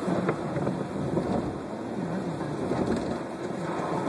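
Steady rain and the hiss of tyres on a wet road, heard from inside a moving car in a thunderstorm.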